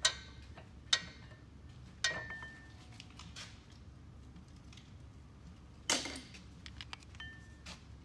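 Metal clicks and knocks of brake pads and their steel clips against an Alfa Romeo rear brake caliper as the old pads are worked out by hand. There are about five sharp clacks, some with a short metallic ring, the loudest about six seconds in, then a run of small ticks near the end.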